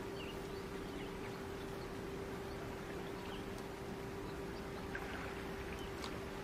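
Outdoor ambience: a steady low hum with an even hiss underneath, and scattered faint, short high chirps.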